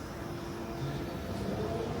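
Electric train on the move at the platform: a low rumble with a steady electric motor whine, a second, higher whine joining near the end.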